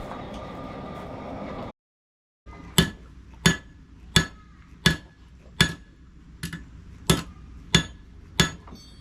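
A steady rushing noise that cuts off abruptly, then a blacksmith's hammer striking an iron nail rod on the anvil in an even rhythm, about nine ringing clinks, one every 0.7 seconds.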